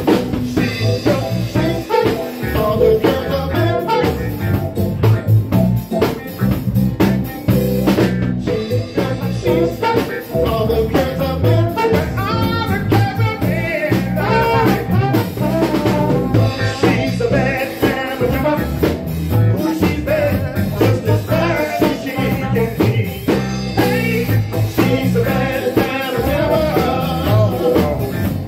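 A live band playing a song: a singer over a drum kit, electric bass guitar, a Yamaha Motif ES keyboard and trombones.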